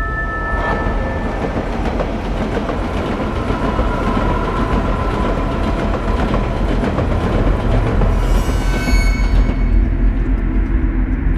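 A loud, continuous heavy rumble of noise with faint steady tones in it, and a brief high-pitched squeal about eight seconds in.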